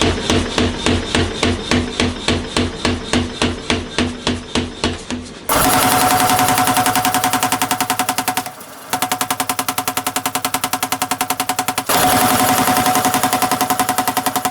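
Power hammer striking a hot stainless damascus billet in a steady machine rhythm, about four blows a second. About five seconds in it switches to a faster, denser run of blows, with a brief stop in the middle.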